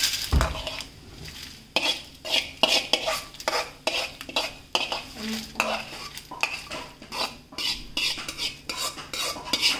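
Metal spatula scraping and knocking against a metal kadai, pushing dry-fried red chillies and spice seeds out of the pan onto a plate, in a run of short, irregular strokes.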